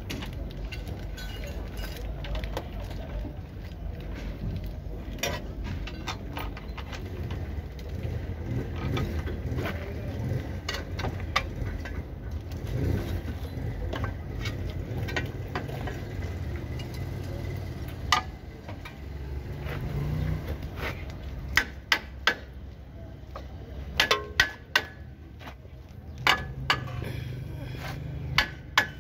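Hand tools clinking and scraping on a car's front suspension, then a run of sharp metal-on-metal hammer blows, several a few seconds apart and then quicker, from about two-thirds of the way in, as the lower arm with its new bushes is worked back into place. A low rumble from the surroundings runs underneath.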